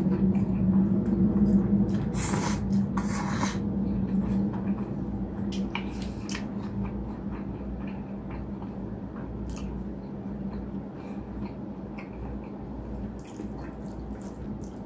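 Close-miked slurping of chewy noodles, loudest in two long slurps about two and three seconds in, then steady wet chewing with small smacking clicks. A steady low hum runs underneath.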